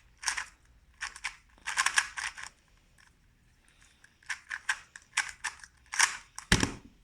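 A 2x2 speed cube being turned fast: quick runs of sharp plastic clicks as the layers snap round, with a short pause in the middle. A heavier knock near the end.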